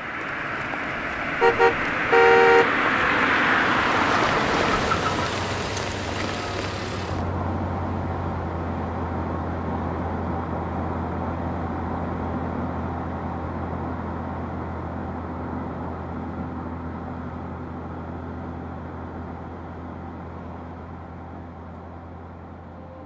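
A car horn sounds over the rush of passing traffic: two short toots and then a longer honk about two seconds in. After that comes the steady low drone of a moving vehicle's engine and road noise, slowly fading.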